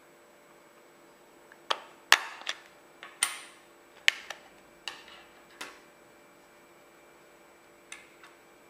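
Plastic clicks and snaps of an Alcatel OT-355 phone's back cover being pried off with a plastic opening pick: a quick run of sharp clicks, some with a short scrape, starting a couple of seconds in and lasting about four seconds. Two light taps near the end.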